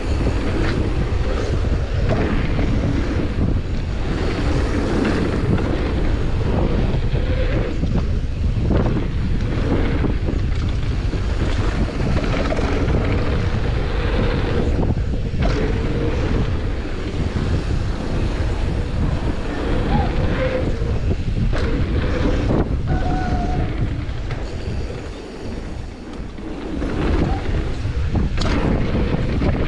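Wind buffeting a handlebar-mounted camera's microphone as a downhill mountain bike rides fast down a packed dirt trail, with tyre roar and the bike rattling and knocking over bumps. The noise eases briefly near the end.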